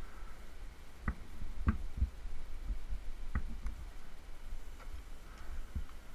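A handful of sharp, irregular clicks and knocks from metal climbing hardware and rope being handled, over a steady low rumble.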